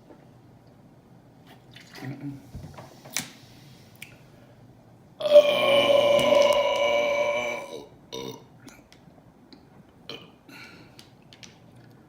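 A woman's loud, long burp lasting about two and a half seconds, starting about five seconds in, brought on by gulping carbonated soda. A few short clicks come before and after it.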